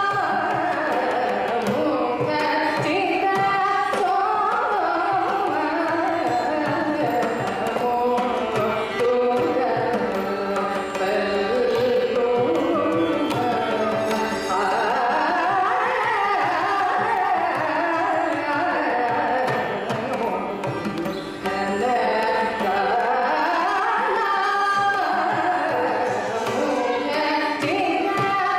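A woman singing a Carnatic kriti with mridangam accompaniment. Her ornamented, gliding melody runs over a continuous pattern of drum strokes.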